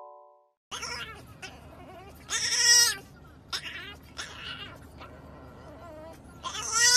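French bulldog puppy whining in high-pitched cries that rise and fall in pitch, loudest about two seconds in and again near the end, with shorter whimpers between. A low steady rumble of the car cabin runs underneath. Before that, the last notes of a mallet-percussion tune fade out in the first moment.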